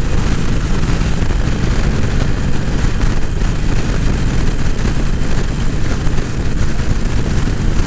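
Steady wind noise rushing over the microphone of a GoPro on a motorcycle being ridden at speed, mixed with engine and road noise.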